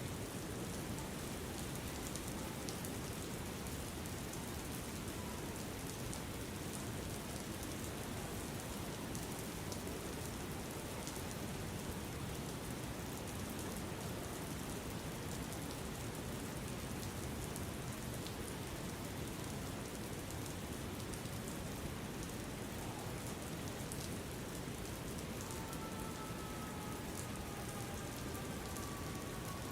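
Steady rain falling, with a fine patter of drops over an even hiss. Near the end a faint thin tone glides slowly downward.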